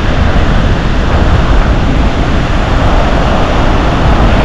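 Loud, steady rush of wind buffeting the microphone, mixed with ocean surf breaking on the beach.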